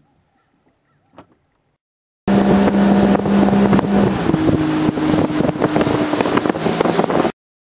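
Bass boat outboard motor running at speed, with wind noise on the microphone. It cuts in suddenly about two seconds in, the engine note steps up in pitch a little over a second later, and it stops abruptly near the end.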